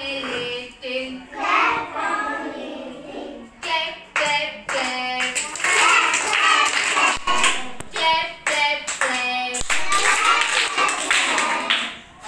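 A class of young children singing a rhyme together in chorus and clapping along; the clapping is thickest through the middle and latter part.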